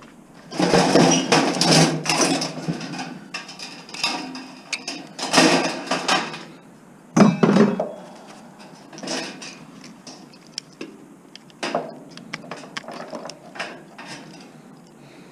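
Scrap metal and plastic parts clattering and rattling as they are handled and dropped into a bin. There are three loud stretches of clatter in the first half, then a few lighter knocks.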